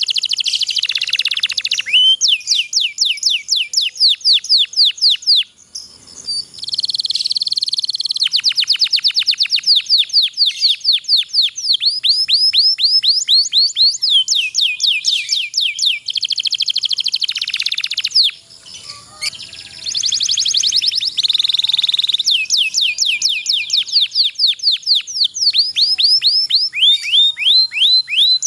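Domestic canary singing long rolling trills of rapidly repeated high notes, the long 'ngerol' rolls prized by canary keepers. The song breaks off briefly twice, about six seconds in and about nineteen seconds in.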